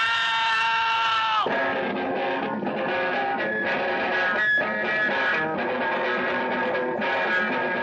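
Music: a held chord that breaks off about a second and a half in, followed by a busier passage of plucked guitar.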